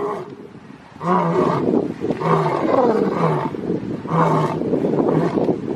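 Lion roaring: after a quieter first second, a run of loud, repeated calls that rise and fall in pitch.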